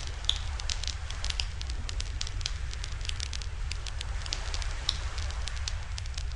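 Wood fire crackling, with many quick irregular pops and snaps over a low steady rumble.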